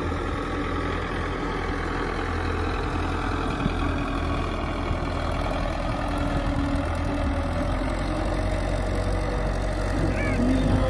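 Belarus tractor's diesel engine running steadily as it pulls a land-leveling blade across the field, growing a little louder near the end.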